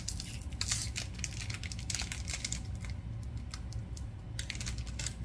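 Foil Pokémon card booster pack wrapper crinkling as it is torn open by hand: a run of sharp crackles and clicks, thinning out for a moment about three seconds in.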